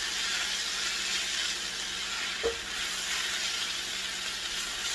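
Seasoned textured soy with onion and pineapple sizzling steadily in a skillet while being stirred with a plastic spatula, with a single sharp knock about halfway through.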